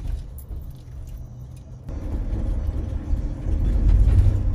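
Engine and road noise of a moving van heard from inside the cabin: a steady low rumble that grows louder and fuller about two seconds in.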